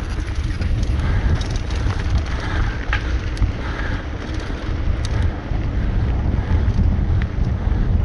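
Wind rumbling on the camera microphone of a mountain bike riding fast down a dirt trail, with the tyres rolling over the dirt and a few sharp clicks and rattles from the bike.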